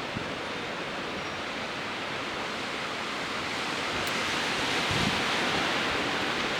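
Storm-force wind rushing through trees as a steady hiss, swelling into a stronger gust about four seconds in, with a brief low buffet of wind on the microphone.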